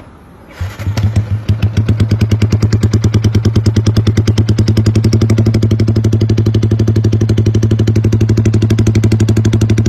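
Yamaha MX King 150 (Y15ZR) single-cylinder four-stroke engine starting about half a second in, then settling into a loud, lumpy rumble idle, an even rapid pulsing, from 'timing kuda' ignition timing on an otherwise standard bike.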